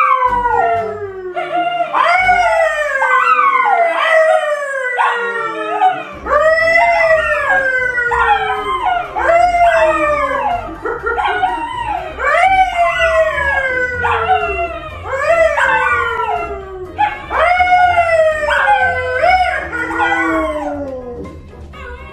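A yellow Labrador and a brown poodle howling along with a man who howls with them. The long howls overlap and slide down in pitch, one after another with barely a break.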